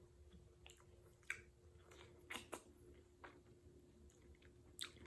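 Close-miked chewing of juicy pineapple chunks: soft wet mouth smacks and clicks, a handful of them sharper, the strongest near the end. A faint steady hum runs underneath.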